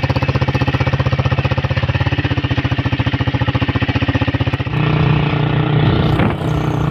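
Small motorcycle engine puttering at low revs with an even pulse of about a dozen beats a second as it crawls over a muddy, rutted track. About four and a half seconds in the sound changes to a smoother, steadier engine drone.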